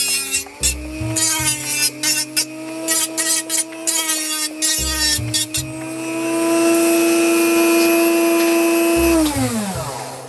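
Flex-shaft rotary tool with a sanding drum grinding the plastic of a model car body. It gives a steady high motor whine with rapid scraping chatter through the first half. It then runs smoothly for a few seconds before winding down, its pitch falling near the end.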